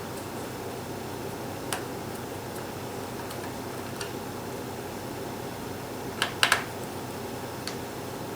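Scattered small, sharp clicks of a Phillips screwdriver and screws against a laptop's bottom case while the cover screws are being taken out, with a louder quick cluster of clicks about six seconds in, over a steady low hum.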